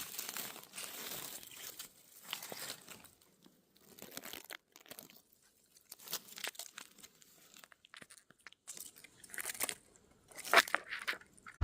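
Irregular crunching and rustling in dry undergrowth, with a few sharper crunches near the end.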